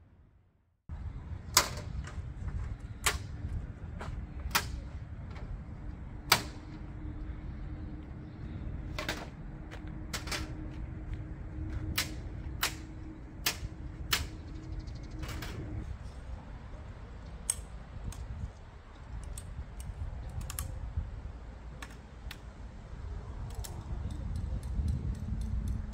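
Sharp clicks and knocks at irregular spacing, about a dozen, over a steady low rumble. A faint steady hum runs through the first half and stops about two-thirds of the way in.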